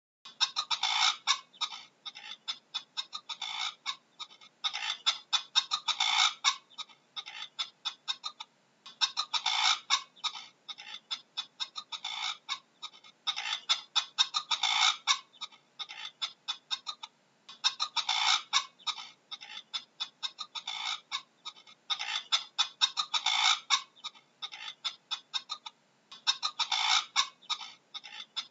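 Bird calls: rapid clucking pulses in bouts of about a second and a half, repeating roughly every four seconds, with fainter scattered clucks between them.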